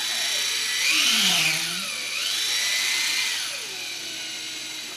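Cordless drill running with a long, thin (about 4 mm, 12-inch) bit, boring down through layers of one-inch foam board. The motor's whine rises and falls in pitch several times as the speed changes, and stops near the end.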